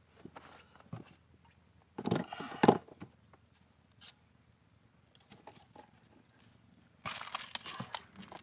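Knocks, scrapes and rattles of a landed fish being handled in the bottom of a small wooden boat, with a landing net and a lip grip: a loud flurry about two seconds in, a single sharp tick, and a longer clatter near the end.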